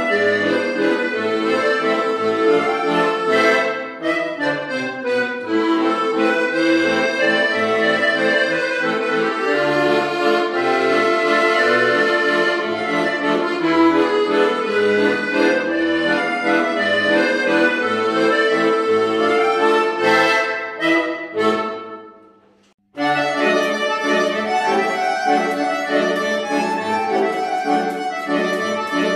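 Piano accordion played solo: a melody on the treble keys over regularly pulsing bass notes. The music fades around 21 seconds in and stops briefly, then the playing starts again at full level.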